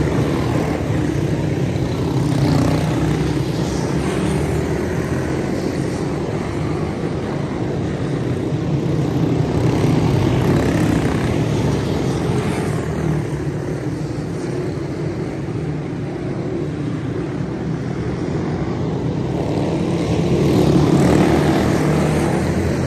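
A pack of quarter midget race cars running laps together, their small single-cylinder engines buzzing in a steady drone that swells and fades as the pack comes round.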